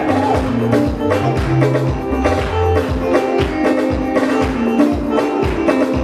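Live gospel music from a band, with a bass line under held tones and a steady beat.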